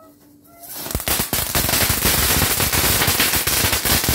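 A firecracker going off on the ground. It starts with a short hiss as it catches, then from about a second in comes a rapid, unbroken string of loud pops and cracks.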